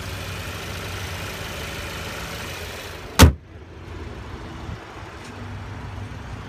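The 2016 Audi TT's 2.0-litre turbocharged four-cylinder engine idling with the hood open, then the hood slammed shut with one loud bang about three seconds in. After the bang the engine sound is duller.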